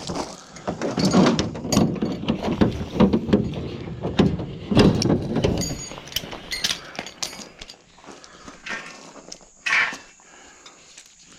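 Scrap metal being handled and shifted in a pickup bed: a dense run of clanks and rattles for about six seconds, some with a brief metallic ring, then a few scattered knocks and one louder one near the end.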